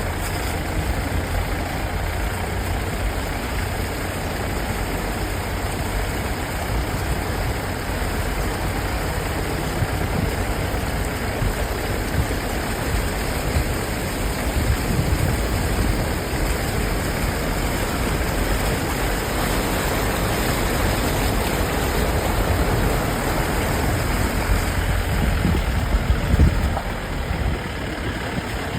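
A vehicle engine running steadily, with a heavy low rumble and no clear changes.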